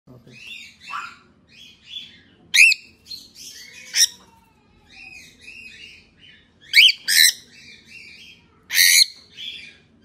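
Cockatiel calling repeatedly while held and handled for a DNA sample: a run of short chirps, broken by loud, sharp squawks about 2.5 and 4 seconds in, twice around 7 seconds and again near 9 seconds.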